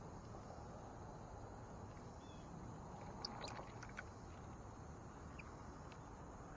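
Quiet steady outdoor background noise, with a quick cluster of short high ticks about three seconds in and a few faint high chirps.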